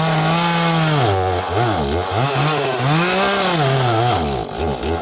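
Small 30cc Echo chainsaw cutting through a log. The engine pitch dips and rises several times as the chain loads and clears in the wood.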